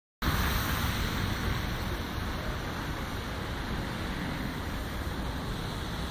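Wind blowing on the microphone: a steady rush with irregular low buffeting.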